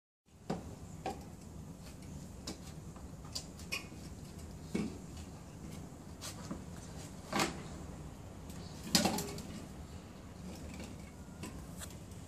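Beer cans knocking and clinking on a concrete floor as a toddler picks them up and stands them upright: about ten separate short knocks, irregularly spaced, the loudest about three-quarters of the way through.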